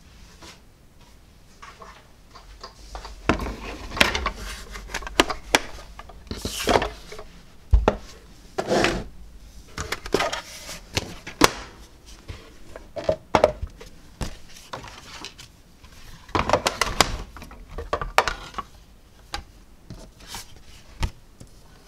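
Clicks, knocks and rustling of a hand-cranked die-cutting machine and its plastic cutting plates being handled, with several short scraping stretches as the plate sandwich is cranked through the machine.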